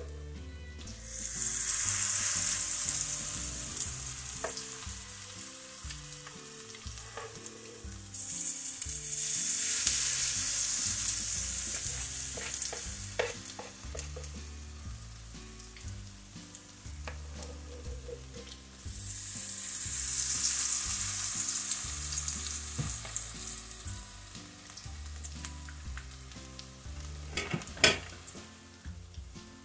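Salmon fritter batter dropped by the spoonful into hot vegetable oil in a skillet. Three times the oil bursts into a loud sizzle that slowly fades to a gentle frying hiss. A sharp knock comes near the end.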